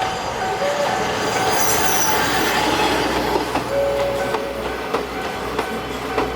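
Diesel railcar passing over a level crossing: steady running noise with wheels knocking over the rail joints and a brief wheel squeal about four seconds in. The crossing's warning bell rings on in a repeating pattern.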